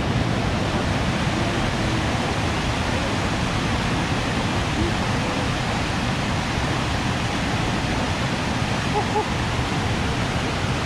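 Steady rushing of whitewater: a fast forest river pouring over rocks in rapids below a small waterfall.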